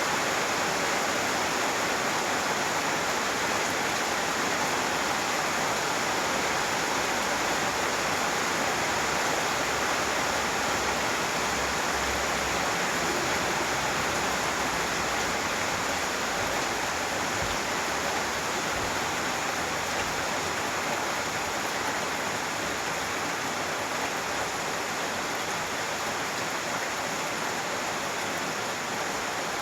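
Steady rain falling, a dense even hiss with no separate drops or breaks.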